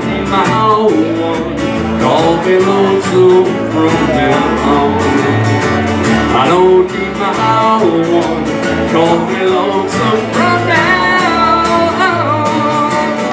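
Live acoustic duo: two acoustic guitars strumming a song, with a sung melody over them.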